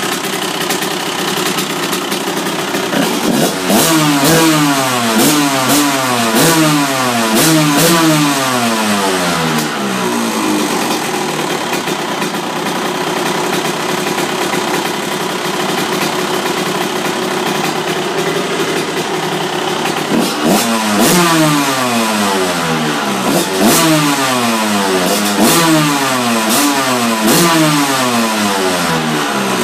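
1999 Honda CR125's single-cylinder two-stroke engine running. It idles steadily, and in two spells it is given quick repeated throttle blips, the pitch jumping up and falling back about once a second.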